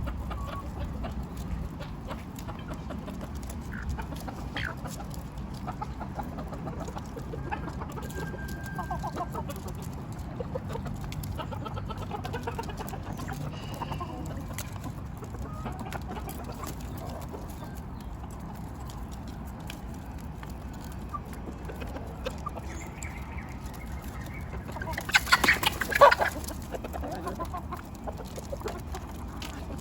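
Chickens clucking as they feed, with a brief loud squawk about three-quarters of the way through.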